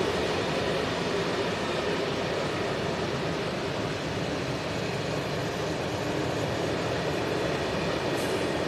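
Open-top freight wagons of a freight train rolling past, a steady rumble of steel wheels on the rails.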